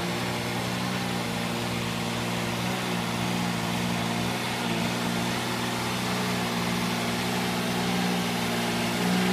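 Engine of a Dingo mini tractor running steadily under load, with an even hum, while its front rotary tiller churns poultry litter on the floor.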